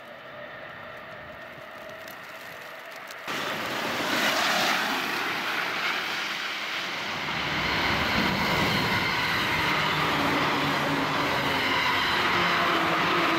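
A Tokaido Line suburban electric train approaching and then passing close by at speed, a rushing noise building about four seconds in and turning into a steady, loud rumble of wheels on rails as the cars go by. The first three seconds hold a much fainter sound that jumps up abruptly.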